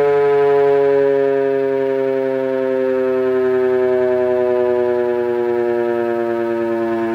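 Gryphon BS 2048 electric siren sounding the attack signal: a loud, many-toned chord whose pitch slides slowly downward as part of the wail.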